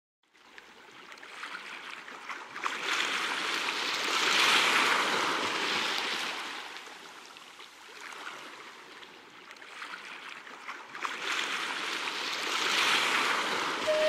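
Sea surf: waves washing in and drawing back as an even hiss that swells and fades twice, loudest about four seconds in and again near the end.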